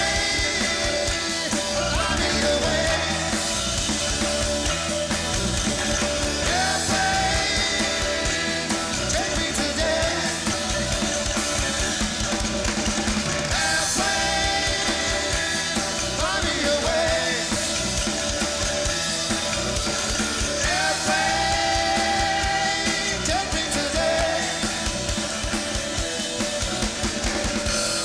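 Live rock band playing: drum kit, electric guitars and keyboards, with a held lead line that bends in pitch over the top.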